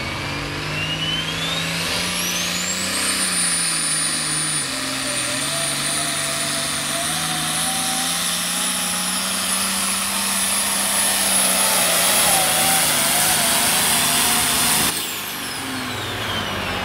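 Turbocharged diesel engine of an International 1466 Pro Farm pulling tractor running flat out under load on the sled, its turbo whine climbing to a high pitch in the first few seconds and holding. About fifteen seconds in the throttle is chopped at the end of the pull: the sound drops suddenly and the whine winds down.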